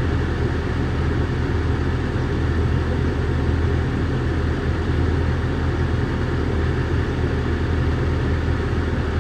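Heavy earthmoving machine's diesel engine running steadily, a constant low rumble with no change in speed.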